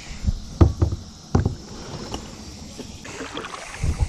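A few sharp knocks and bumps on a kayak, as of gear or a paddle striking the hull: several in the first second and a half, then two more near the end.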